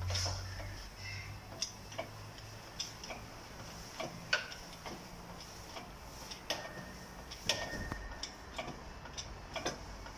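Scattered sharp clicks and light metal taps, a dozen or so at uneven intervals, from hand tools and press parts being handled during a wheel bearing press job, with a low hum in the first couple of seconds.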